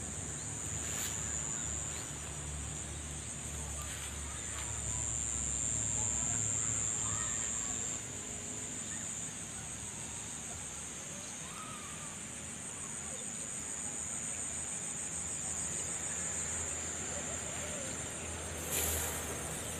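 Steady high-pitched chorus of insects trilling in the vegetation around rice paddies, with a low rumble for the first several seconds and one short louder noise near the end.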